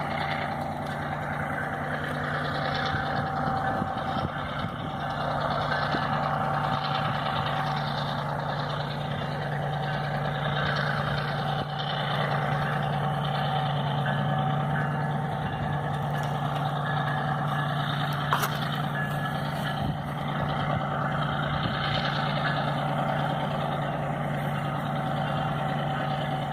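EMD G12 diesel-electric locomotive engine running with a steady, unchanging drone as the train moves slowly. A single sharp click comes about two-thirds of the way through.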